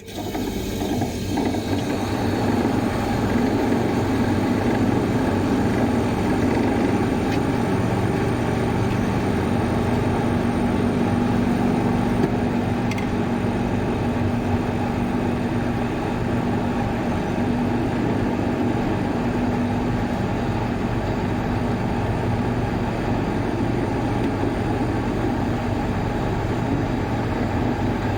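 Water cooler's fan motor starting up, gathering speed over about two seconds, then running steadily with a hum.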